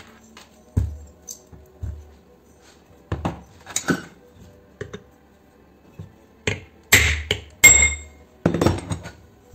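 Finned aluminium electric-motor housing knocked about and set down on a steel workbench, then several hard metal-on-metal hammer strikes with a ringing note in the last few seconds, driving the shaft bearing out of the motor's end cap.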